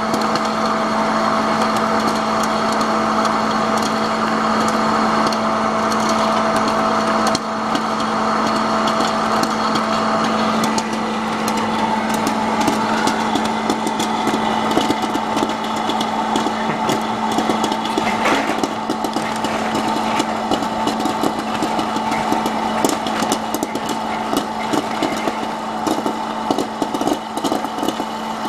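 Freshpop hot-air popcorn vending machine running with a steady hum as it heats the kernels; from about twelve seconds in, kernels start popping, the pops growing quicker toward the end.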